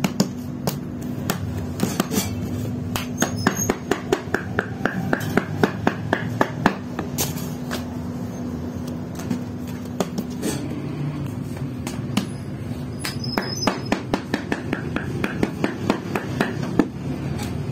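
Hands patting and slapping flatbread dough on a round metal plate: a quick, irregular run of sharp taps and knocks, over a steady low hum.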